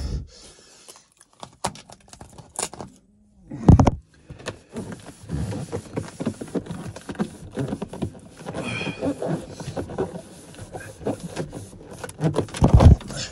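Handling noise: irregular rustling, clicks and knocks from hands working a foil-faced sound-deadening mat and the camera, with two heavy thumps, one about four seconds in and one near the end.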